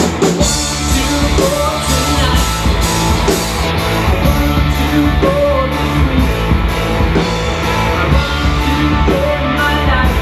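Rock and roll band playing live: guitar over bass and drums, with a steady driving beat.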